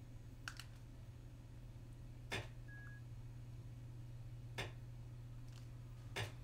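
Computer mouse button clicks, four of them about two seconds apart, over a steady low electrical hum, with a faint short beep after the second click.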